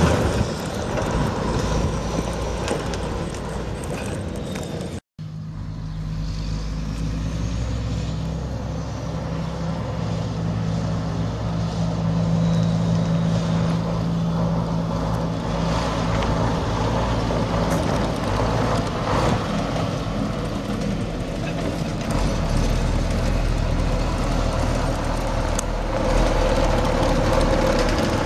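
Mack E7 12.0-litre inline-six turbo diesel of a semi truck running at a steady, even speed. The sound cuts out for an instant about five seconds in, then carries on unchanged.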